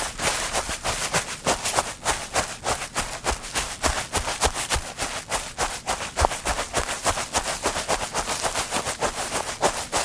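Footsteps on grass: a quick, steady succession of steps, about four a second.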